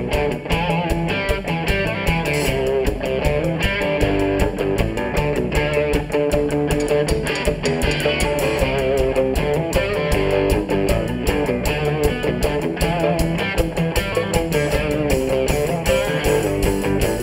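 Live rock band playing a song: electric guitar over bass and a steady drum beat.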